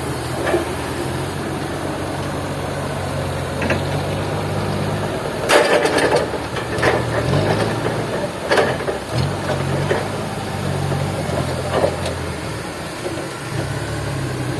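A sawmill engine idling steadily, its low note dipping briefly a few times, with loud knocks and clatters about halfway through and a few more later.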